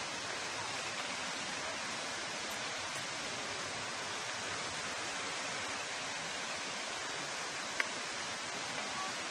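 Steady hiss of rushing water from the river running high, with one small click about eight seconds in.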